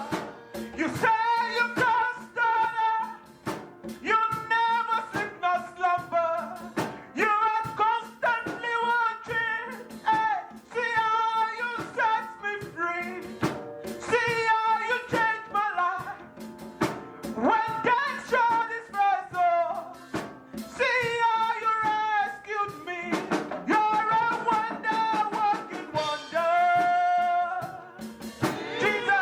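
Live gospel worship song: sung melody with wavering, held notes over a drum kit and instrumental backing.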